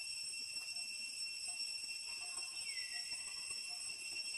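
Steady high-pitched insect drone, with a second, slightly lower drone sliding in a little past halfway and a faint short note repeating about every three-quarters of a second.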